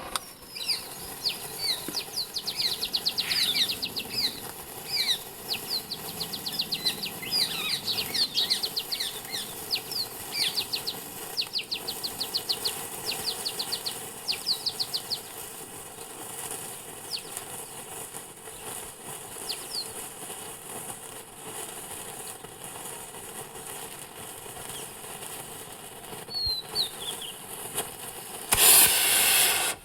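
Small birds chirping in quick runs of short high notes through the first half, fewer later. Near the end a loud rushing hiss of about a second: a Diwali rocket firework firing.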